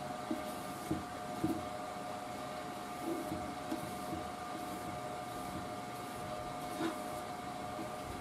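Steady mechanical hum with a couple of constant tones, over which a felt pad rubs stain onto a wooden radio cabinet in a few faint, soft strokes.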